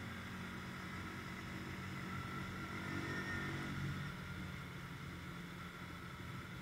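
CFMoto ATV engine running as the quad drives along a dirt track; the revs and loudness rise briefly from about two and a half seconds in, then drop back at around four seconds.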